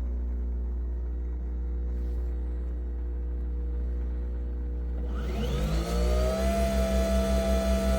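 Nespresso Vertuo Pop+ coffee machine running: a steady low hum. About five seconds in, the capsule-spinning motor spins up with a rising whine that settles into a steady tone, over a hum that pulses about five times a second.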